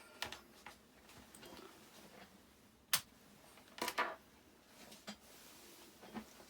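Small hard objects handled on a workbench: faint rustling, one sharp click about three seconds in, and a short clatter of clicks a second later.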